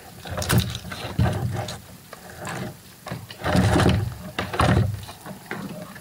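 Irregular knocks, bumps and rustles of hands handling gear in a wooden boat, with the loudest thumps about half a second in and between three and a half and five seconds in.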